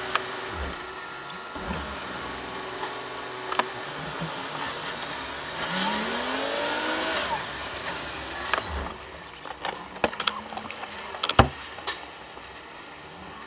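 Lorry's diesel engine running in the cab, its note rising for a couple of seconds midway as the truck pulls away slowly. Later the running sound drops back and a few sharp clicks and knocks sound in the cab, the loudest near the end.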